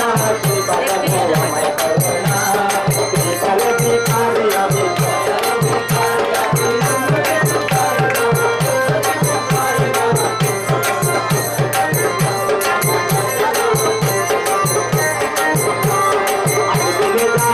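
Qawwali music: singing over a hand drum keeping a steady beat of about three low strokes a second, each stroke dropping slightly in pitch.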